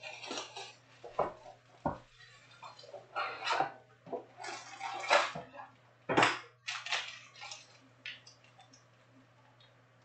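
Cardboard Panini Prizm trading-card box being opened and handled, its foil-wrapped card packs rustling and crinkling as they are pulled out and set down: irregular scrapes, taps and crinkles in bursts, over a steady low hum.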